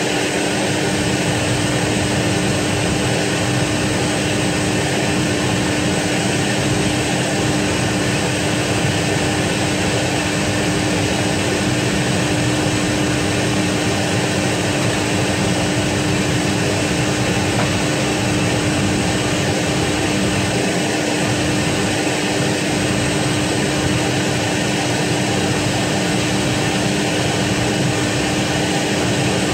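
Steady, unchanging running noise of aircraft power machinery beside a parked Fokker 100 airliner, with one constant hum under a wide rushing sound.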